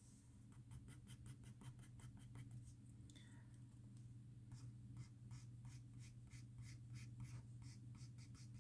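Pencil scratching on paper in short, quick strokes, about three to four a second, as fur is drawn hair by hair; faint, over a low steady hum.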